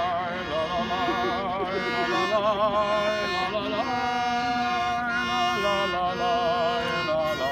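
Music: a violin melody on long held notes with wide vibrato, moving to a new note every second or so.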